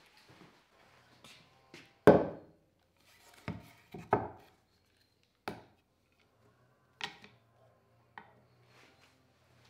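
Spalted beech pieces and a lamp cable with its plug and brass lamp holder being set down and handled on a wooden workbench: a handful of separate knocks and clatters, the loudest about two seconds in.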